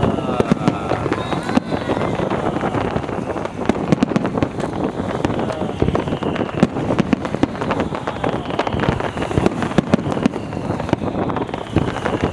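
Fireworks crackling with a dense run of sharp pops, with a few whistles falling in pitch near the start and again near the end, under wind buffeting the microphone.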